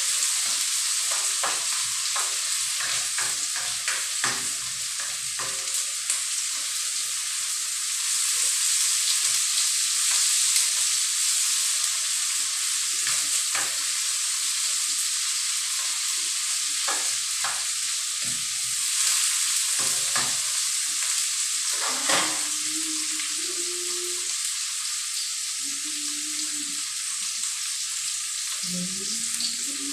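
Vegetables sizzling in hot oil in a steel wok on a gas burner, stirred with a metal ladle that clinks and scrapes against the pan: the sauté stage of the dish. The ladle clicks come often through the first twenty seconds or so, then thin out while the sizzle goes on steadily.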